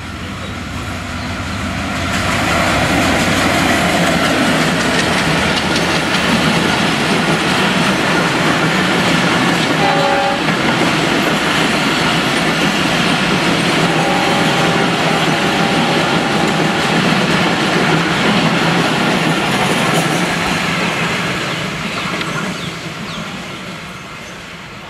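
Bangladesh Railway diesel-hauled express passenger train running through a station without stopping: the locomotive comes up and passes, then a long line of coaches clatters by over the rails. The sound builds over the first couple of seconds, stays loud, and fades away over the last few seconds as the train leaves.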